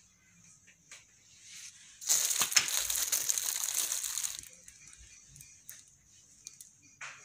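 A burst of crinkling and rustling, as of something being crumpled or handled, starting about two seconds in and lasting a little over two seconds, with a few faint clicks around it.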